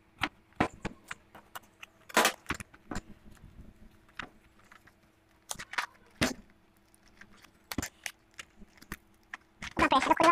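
A knife cutting through the packing tape of a cardboard parcel, then the cardboard flaps being pulled open by hand: scattered rustles, scrapes and clicks.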